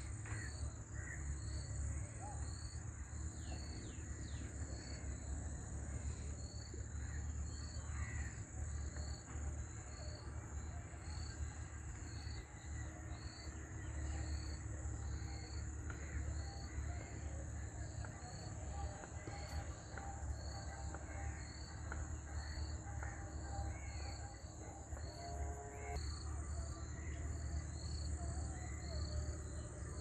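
Outdoor ambience of insects and birds: a steady high insect buzz with a short chirp repeating a little more than once a second, and scattered brief bird calls over a low rumble.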